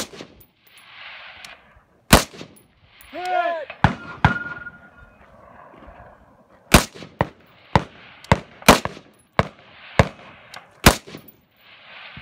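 Rifle shots fired from the prone position at an uneven pace, about a dozen of them, some coming in quick pairs. One brief high ringing tone follows a shot about four seconds in.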